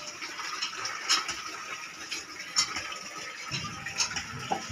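Water running steadily in a hiss, with a few sharp knocks about a second apart, and low handling noise near the end.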